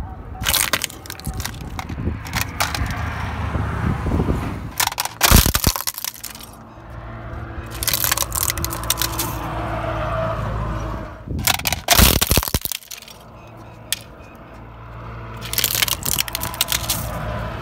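Plastic toys cracking and breaking under a slowly rolling car tyre on asphalt, in several bursts of sharp snaps, the loudest about five and twelve seconds in. Between the bursts the car's engine and tyres give a low rumble.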